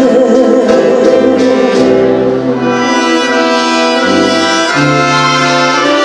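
Live orchestra with a brass section playing an instrumental passage: sustained brass chords over a bass line that moves from one held note to the next.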